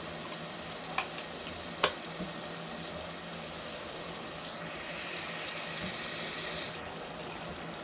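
Onion-tomato masala sizzling steadily as it fries in oil in an aluminium pot, with two light clicks in the first two seconds. The sizzle grows brighter and louder for a couple of seconds past the middle.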